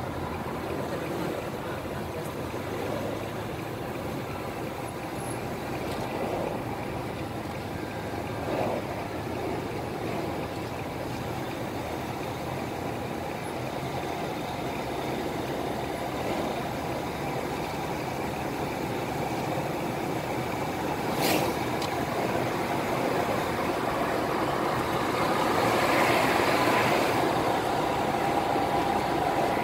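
Car driving at highway speed: steady engine and tyre-on-road noise, swelling near the end as another car comes alongside. One sharp click about two-thirds of the way through.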